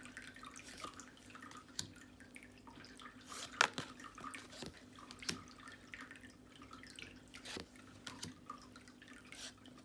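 Tarot cards being handled and flipped through one by one: faint scattered clicks and light taps of card on card, the sharpest about three and a half seconds in, over a steady low hum.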